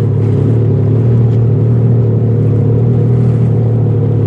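Yamaha EX WaveRunner's three-cylinder four-stroke engine running steadily at low speed, an even hum with no change in revs.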